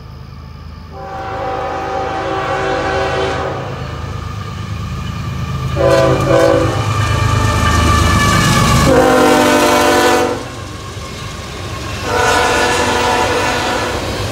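Freight train locomotive horn sounding four blasts of several tones together: a long one, a short one, then two long ones, the last two lower in pitch once the locomotive has gone by. Under the horn, the train runs past with a steady rumble that is loudest as the locomotive passes.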